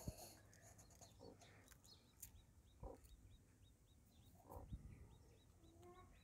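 Faint peeping of newly hatched chicks: short high peeps repeated about three times a second. Near the end the broody hen gives a soft low call.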